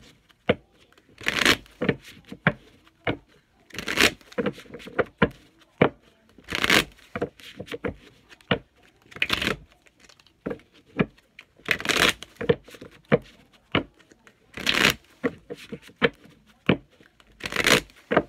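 A tarot deck being shuffled by hand. A louder rush of cards comes about every three seconds, with light card clicks in between.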